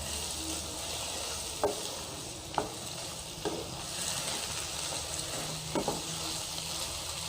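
Chicken frying in a pan, a steady sizzle, with curd just stirred in and a spoon scraping and tapping the pan a few times.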